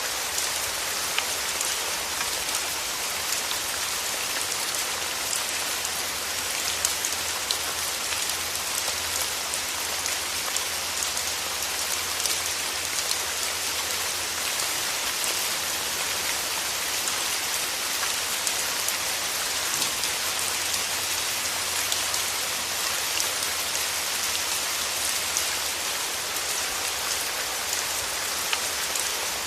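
Steady rain falling on a surface, a dense even hiss with many small scattered drop ticks throughout.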